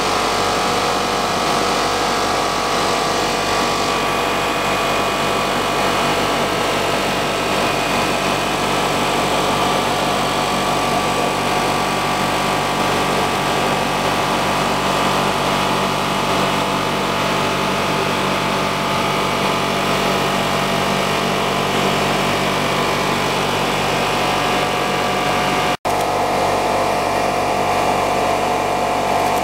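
Blown film extrusion line running: a steady mechanical drone with several constant tones from its motors and drives. The sound drops out for a split second near the end, then carries on slightly changed.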